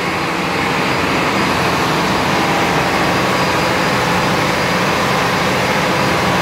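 Cummins QSM11 six-cylinder marine diesel generator set running steadily at a governed 1500 rpm for 50 Hz output, heard up close as a loud, even engine drone with no change in speed.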